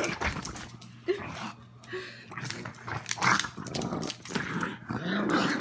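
Two pugs play-fighting over a plush toy, making short, irregular dog noises.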